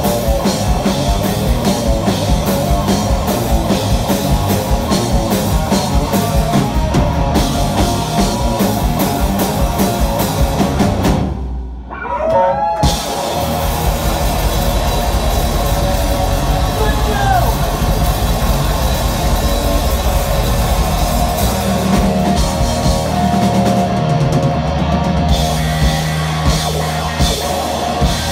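Live punk rock band playing loud: distorted electric guitar, bass guitar and drum kit. About twelve seconds in, the drums and cymbals stop for a second or so, then the full band crashes back in.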